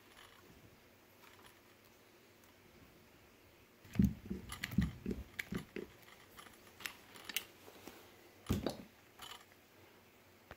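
Handheld hydraulic cable crimper being set on a copper butt splice and worked to crimp it onto heavy 4 AWG cable. About four seconds in, an irregular run of sharp clicks and knocks begins and lasts about five seconds.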